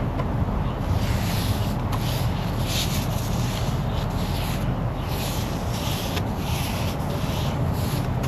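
A brush scrubbing the boat's hull in steady back-and-forth strokes, about one stroke every half second, over a steady low rumble.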